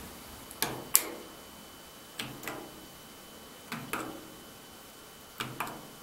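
Elevator car push buttons clicking as they are pressed and released: four pairs of sharp clicks about a second and a half apart. Nothing answers them: the car is stuck and does not move.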